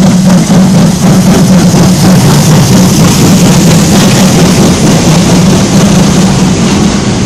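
Ty42 steam locomotive and its train passing close by, with hissing steam as the engine draws level. After that comes a loud, steady rumble and rattle of the tender and passenger coaches rolling over the rails.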